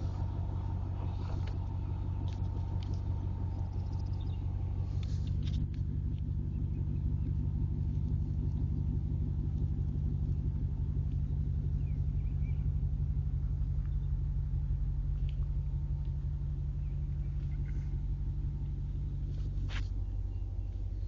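Steady low rumble of a car being driven along a road, with a few faint clicks.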